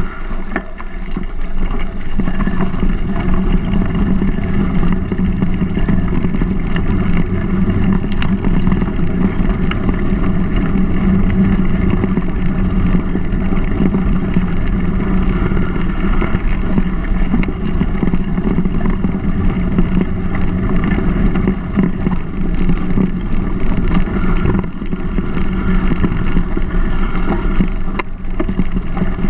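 Steady rumble of a mountain bike rolling along a gravel towpath, picked up by a GoPro riding on the bike, with wind on the microphone.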